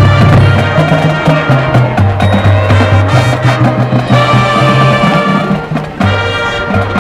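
High school marching band playing its field show: brass and winds holding chords over low bass notes, with drum line and front-ensemble percussion keeping a steady rhythm. The sound drops off briefly a little before the end, then the full band comes back in.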